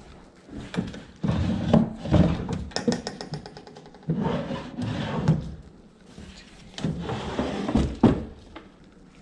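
Heavy stored items being shifted and set down: three bursts of scraping and rattling with thuds and knocks, one with a quick run of clicks.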